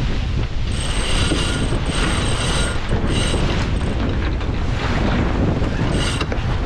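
Wind buffeting the microphone on a J/111 sailboat's deck, with four short, high-pitched whirs of lines running through the rigging's blocks and winches during a spinnaker takedown.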